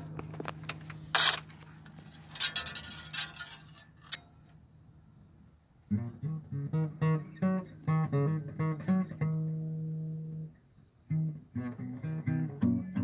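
Guitar intro: low held notes ringing away at first, with some rustling, then a melody of separate plucked notes starting about six seconds in, broken by one longer held note.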